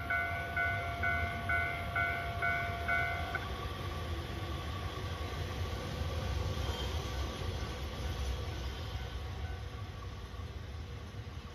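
JR Hokkaido 721 series electric train rolling into the station, a low rumble of wheels on rail that swells through the middle. At first an electronic warning bell rings over it about twice a second, stopping about three seconds in.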